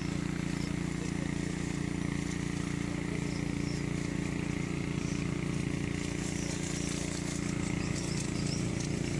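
Small engine-driven power sprayer running steadily, pumping spray through a long hose to a hand-held spray wand. The hiss of the spray nozzle grows louder near the end.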